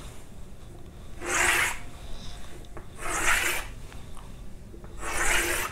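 Chalk scraping across a blackboard in three long strokes, each about half a second and roughly two seconds apart, as straight horizontal lines are drawn.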